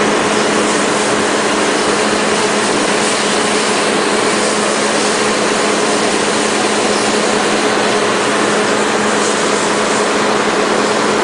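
Steady mechanical running noise with a constant low hum, unchanging in level throughout.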